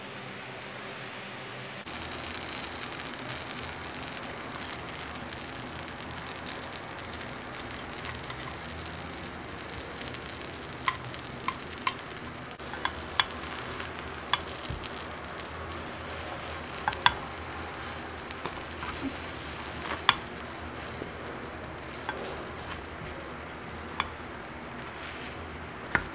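Omelette frying in a nonstick pan, a steady soft sizzle that starts about two seconds in. In the second half a silicone spatula clicks and scrapes against the pan a dozen or so times as the omelette is rolled and folded over.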